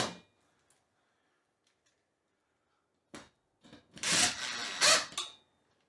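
Brief scraping and rubbing sounds of a metal light-fixture mounting bracket and screws against a drywall ceiling as the screws are started into plastic anchors, a cluster of them starting about three seconds in.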